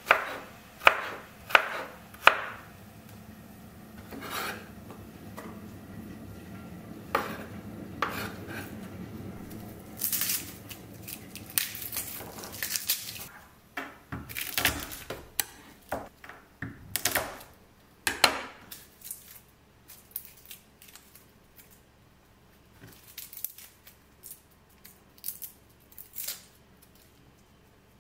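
Kitchen knife chopping spring onion on a wooden cutting board: a few sharp knocks of the blade on the board in the first couple of seconds, then irregular knocks and rustling as the cook works on through the garlic and other ingredients, thinning to scattered taps near the end.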